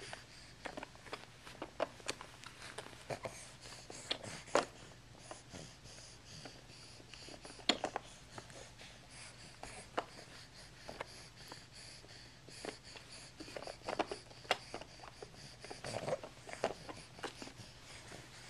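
Faint, irregular clicks and taps of a baby handling a plastic toy.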